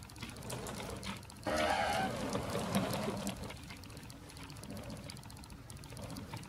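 Model railway wagons rolling slowly along the track: a light, rapid clicking and rumble from the wheels and running gear. About a second and a half in, a louder pitched sound rises over it for nearly two seconds.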